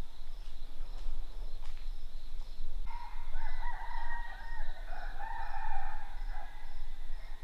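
Roosters crowing: long, drawn-out calls, the clearest beginning about three seconds in and running back to back. A steady high pulsing sounds underneath.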